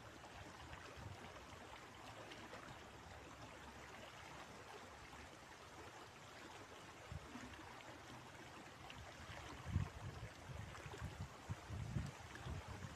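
River water running steadily, a faint even rush. Near the end, low rumbling bumps of wind on the microphone come and go.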